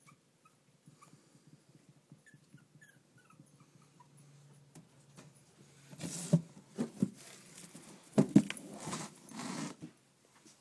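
Brussels Griffon/Shih Tzu–miniature poodle mix puppies whimpering with faint, short, high squeaks, then louder scuffling and bumps in the second half.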